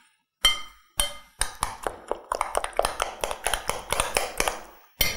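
A utensil beating a thick egg-and-flour batter in a glass bowl, ticking against the glass in rapid, even clinks several times a second, with two brief breaks in the first second and a half.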